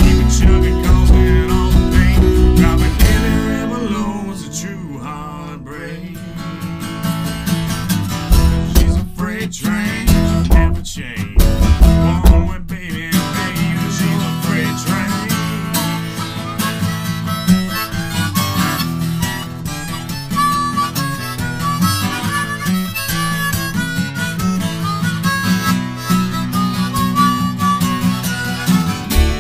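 Harmonica played over acoustic guitar in an instrumental passage, with no singing.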